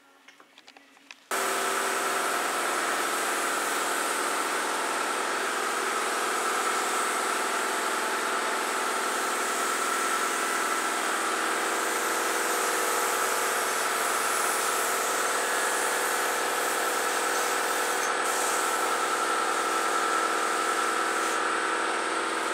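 A machine switches on abruptly about a second in and runs steadily: a loud hum of several steady tones over a rush of air.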